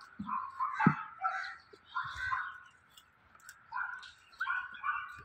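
Small shaggy terrier-type dog whining and yipping in short, high, broken calls, with one low thump just under a second in.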